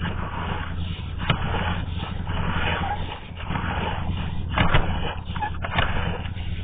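Sewer inspection camera's push cable being pulled back through a drain pipe: scraping noise with scattered knocks over a steady low hum.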